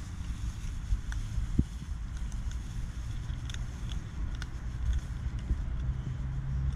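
A tabby kitten chewing dry kibble, with small irregular crunching clicks, over a steady low rumble.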